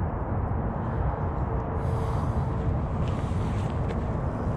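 Wind rumbling steadily on the microphone, a low rush with no let-up.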